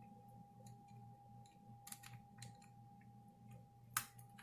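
Faint scattered clicks and small taps of a small Phillips screwdriver working the tiny screws that hold a laptop's LCD panel to its lid, with one sharper click near the end, over a faint steady hum.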